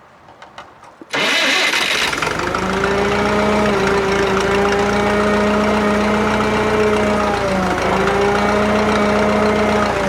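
Drott 85RM2 crane's engine starting: a few faint clicks, then about a second in it catches suddenly and settles into a steady run with a steady hum.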